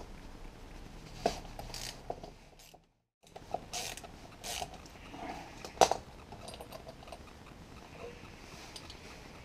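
Screwdriver ratchet clicking in short spells with a T30 Torx bit, as the bolt holding the roller wheel on an auxiliary belt tensioner is undone, with metal knocks of tool and part; the loudest knock comes about six seconds in.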